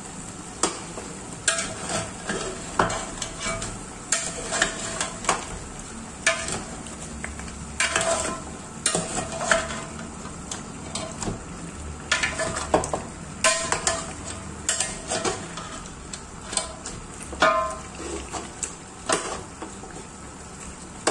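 A steel spoon stirring and scraping beef shank and trotter pieces in an aluminium pot, giving irregular metal clinks and scrapes over a low sizzle as the meat fries in its masala.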